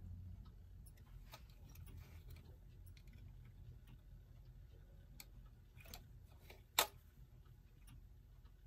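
Faint, irregular small clicks and taps of a tool working at a clock's friction-fit second hand as it is pried up off its post, with one sharper click about seven seconds in.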